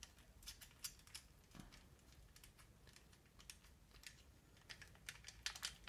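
Faint, scattered metallic clicks of a lowrider bicycle's chrome springer-fork spring assembly being taken apart by hand, with a quick run of clicks near the end.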